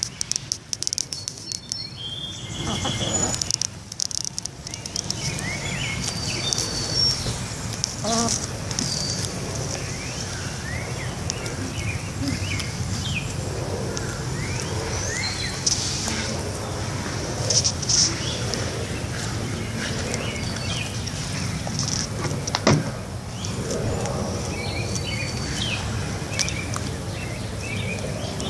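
Birds chirping over and over in short rising chirps against a steady outdoor background hum, with one sharp knock about three quarters of the way through.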